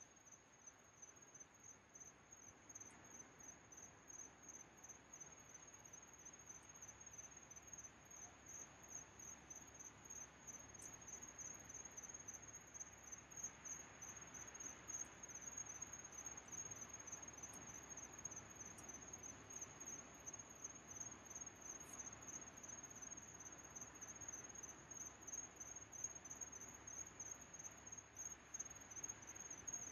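Crickets chirping in a steady, even pulse, faint, over a soft hiss.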